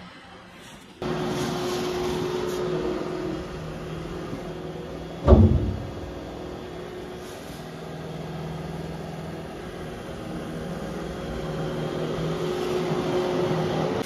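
iRobot Roomba i7+ robot vacuum running, a steady whir of its suction motor and brush rollers with a low hum, louder from about a second in. A single loud knock about five seconds in.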